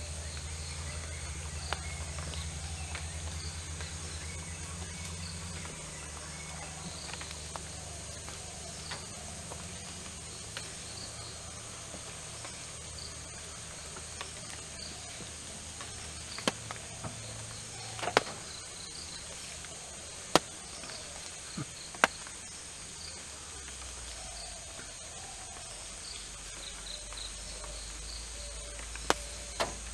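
Steady, high-pitched chorus of forest insects. A low hum fades out over the first several seconds, and a handful of sharp cracks or snaps stand out, the loudest around the middle and near the end.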